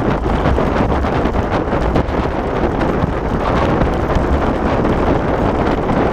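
Wind buffeting the microphone of a camera on a dog rig moving fast over a rough grass trail, with the rig's frame rattling and jolting all the way through and a low rumble beneath.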